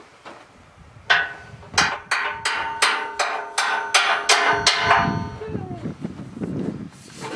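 Hammer striking steel: about ten ringing metallic blows, roughly three a second, ending after about four seconds and followed by duller clattering of metal parts being shifted.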